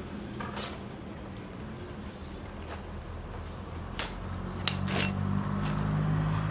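A few sharp clinks and knocks, the loudest about four seconds in and again just before five, while a vehicle's engine hum grows louder through the second half.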